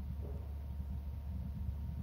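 Steady low rumble of outdoor background noise on the microphone, with a faint steady hum above it; no eagle call.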